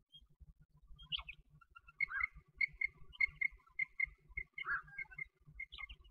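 A quail giving a run of soft, short chirps, several a second, all at much the same pitch, with a few louder notes in between.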